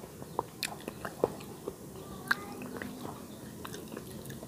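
Eating soup from a plate: chewing, with several sharp clinks of a metal spoon against the plate.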